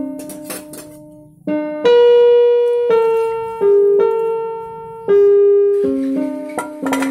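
Background music: a keyboard playing a slow melody of sustained notes.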